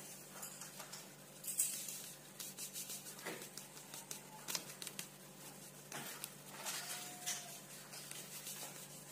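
Faint, scattered light clicks and taps of kitchen handling, over a low steady hum.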